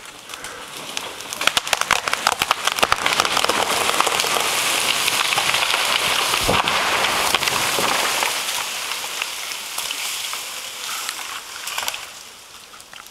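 Felled beech tree coming down: a quick run of sharp cracks and snaps of breaking wood, then a long rushing swish of branches and leaves tearing through the surrounding canopy, with a low thud about six and a half seconds in. It fades into rustling and the patter of falling twigs and leaves, with one last crack near the end.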